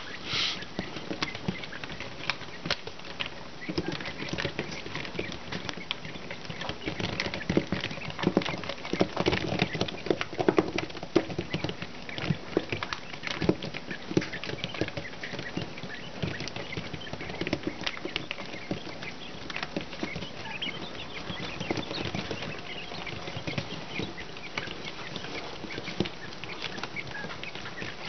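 Young quail chicks pecking and scratching on a mesh floor liner: a steady pattering of many small taps and clicks, with scattered soft peeps.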